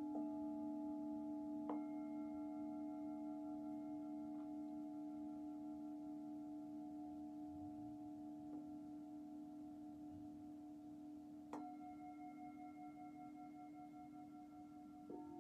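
Singing bowls struck gently every few seconds, each strike adding a fresh ringing tone that layers over the ones still sounding. A strong low hum holds throughout, some of the higher tones waver in a slow pulse, and the whole slowly fades between strikes.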